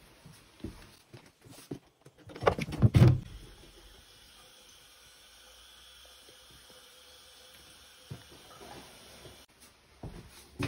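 A few heavy knocks and clatter, then a bathroom washbasin tap running steadily for about six seconds before being shut off abruptly. A few soft knocks follow near the end.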